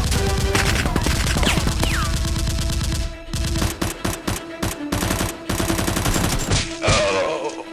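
Rapid automatic gunfire sound effects: a dense stream of shots, with a couple of falling whistles in the first two seconds. After about three seconds it thins into more separate bursts.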